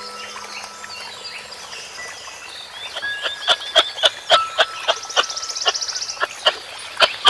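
Animal calls: a series of sharp clicks, two or three a second, with a rapid high buzzing trill about five seconds in.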